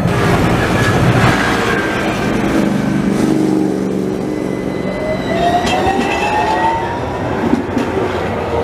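AnsaldoBreda Sirio low-floor tram pulling away from a platform stop, its electric drive whining in a tone that rises steadily in pitch over a couple of seconds as it gathers speed.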